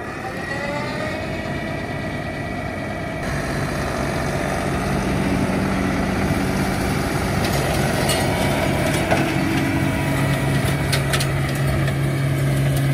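Solis compact tractor engine running under load, driving a rear-mounted flail mower through grass. The pitch climbs in the first second as it revs up, then holds as a steady drone, with a few sharp ticks partway through.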